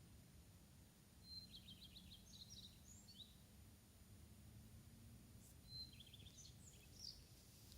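A redstart singing two short song phrases, about four seconds apart. Each starts with a clear whistled note, runs into a fast trill of repeated notes and ends in a brief jumble of higher twittering notes.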